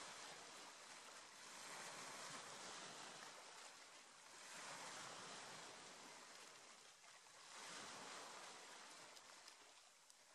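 A faint, even rushing hiss that swells and fades three times, about every three seconds, like surf washing in.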